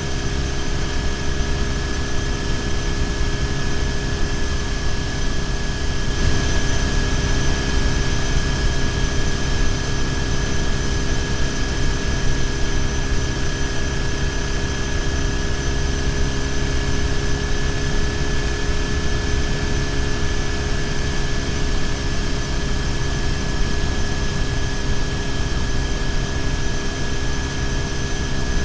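BMW R1150GS boxer-twin motorcycle cruising at steady speed, heard from a bike-mounted camera: a constant low engine rumble and wind rush with a steady high whine over it.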